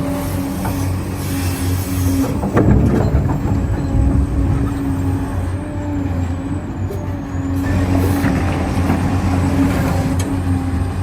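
1:14 scale HUINA RC construction machines running with a steady mechanical hum, and a brief clatter about two and a half seconds in.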